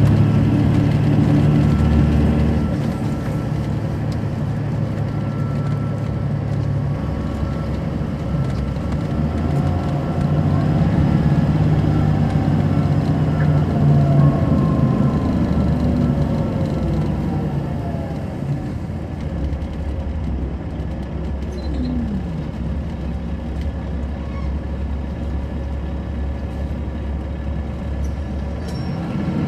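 Caterpillar C13 diesel engine of an MCI D4500CL coach bus, heard from inside the bus, running continuously as the bus drives. The engine sound is strongest at the start, builds again in the middle, and settles lower and quieter over the second half.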